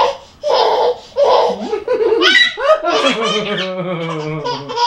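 Toddler laughing hard in repeated bursts while being played with.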